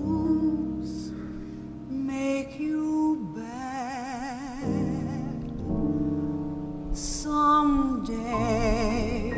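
A woman singing a ballad live with piano accompaniment, holding long notes with vibrato over sustained piano chords.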